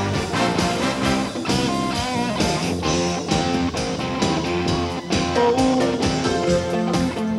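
Rock band playing live, led by electric guitar over drums and bass, with no singing.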